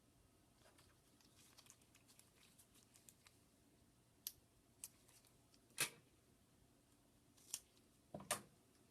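Sparse small sharp clicks and snips from hands, tools and Kapton tape being worked over an iPad 2 logic board's connectors, with faint ticks between. The loudest come about six seconds in and near the end.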